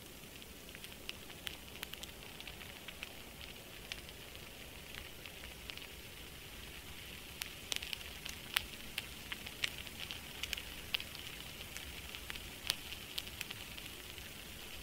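Crackling ambient sound track: a steady hiss with irregular sharp crackles and pops, which come more often from about halfway through.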